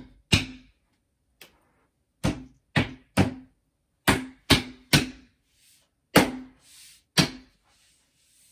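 About ten sharp knocks on the particleboard top panel of a flat-pack chest of drawers, in uneven groups of two and three, each with a short ringing hum from the board.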